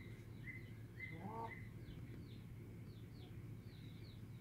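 Small birds chirping faintly: short high notes and quick falling chirps, several a second. About a second in there is one brief lower call.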